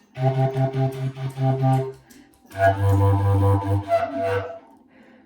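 A low-pitched wind instrument playing a solo band part in two phrases: a run of separate notes, a short break, then a lower, more held passage.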